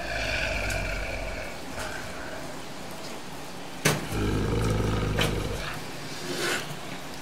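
Low, rumbling growls of an unseen large creature (the film's Bigfoot) in two stretches of about a second and a half each: one at the start, and one from about four seconds in, preceded by a sharp click. A few fainter clicks follow.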